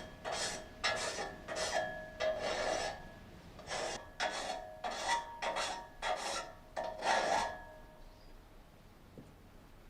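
A hand file rasping across the teeth of a steel saw blade in steady back-and-forth strokes, about two a second, with a faint metallic ringing under them; the strokes pause briefly about three seconds in and stop a little past halfway.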